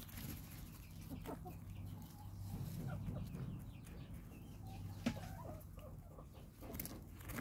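Domestic hens clucking softly, with a few short higher calls, over the faint rustle of a hand stirring wood-chip litter.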